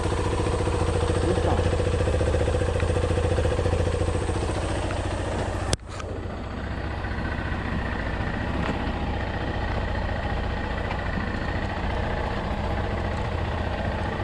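Yamaha Serow motorcycle's single-cylinder engine running steadily at low revs, with an abrupt break about six seconds in before it carries on.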